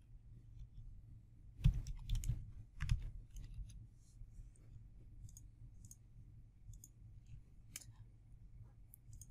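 Computer keyboard keystrokes and mouse clicks, faint: a quick cluster of sharper key taps about two seconds in, then a few scattered clicks.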